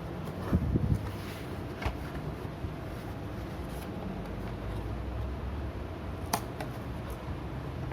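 Handling noises from unboxing a printer toner cartridge: a few soft knocks about a second in, a click near two seconds and a sharp click later, over a steady low background hum.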